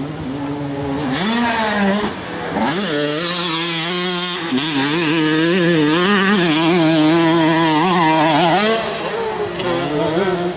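Motocross bike engine revving hard and unevenly, its pitch wavering up and down under load on a steep dirt climb, then dropping back near the end.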